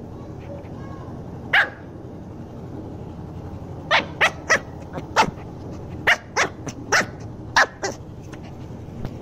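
Pomeranian puppy yapping in play, short sharp barks: one about one and a half seconds in, then a quick run of about a dozen from about four seconds in, over a steady low background hum.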